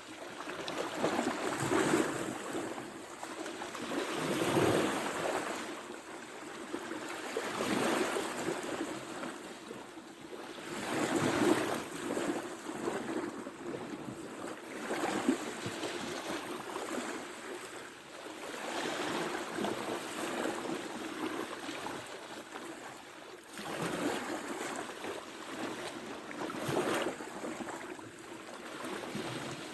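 Ocean waves breaking and washing ashore, swelling and fading every few seconds, with some wind on the microphone.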